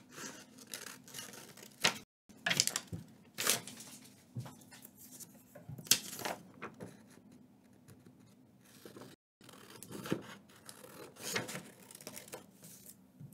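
Scissors cutting through paper, an irregular run of crisp snips and paper rustling as the sheet is handled and turned. Twice the sound drops out for a moment.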